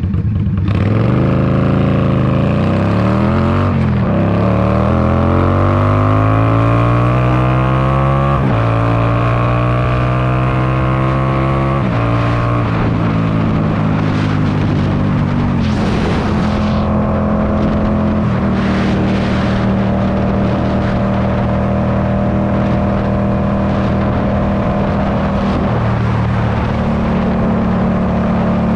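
Indian Scout Bobber's V-twin with straight-pipe exhaust under hard acceleration. The engine's pitch climbs and drops sharply at upshifts about 4, 8 and 12 seconds in. After that it settles into a steady cruise.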